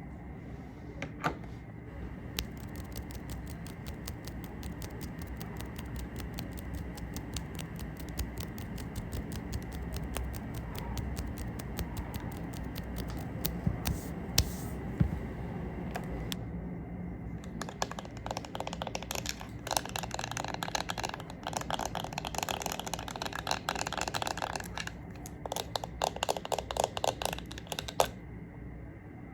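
Rapid light tapping and scratching on makeup products: a fast run of small clicks that turns busier and louder about two-thirds of the way through, then thins out near the end.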